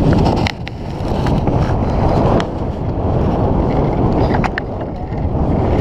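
Wind buffeting the microphone: a loud, unsteady rumbling rush, with a few light knocks and scrapes mixed in.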